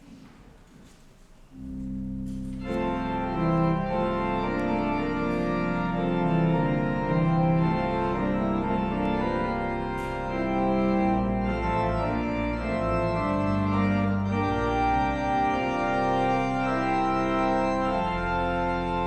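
Church organ begins playing about one and a half seconds in: low bass notes first, with fuller chords higher up joining a second later, then held, sustained chords that move slowly from one to the next.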